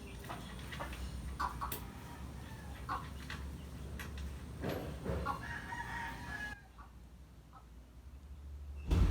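A rooster crowing, one long held call about two-thirds of the way in, among a few sharp clicks. A loud low thump comes at the very end.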